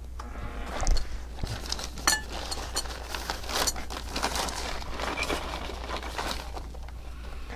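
Rustling and crinkling of a fabric gear bag being handled, with many small clicks and knocks of equipment being moved, over a low steady hum.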